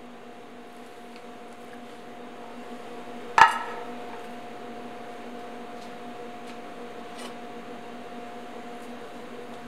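A single sharp metal clank with a short ring, about a third of the way in, as a metal platter knocks against a wooden cutting board while a whole raw chicken is handled. A steady background hum runs underneath, with a few faint light taps later on.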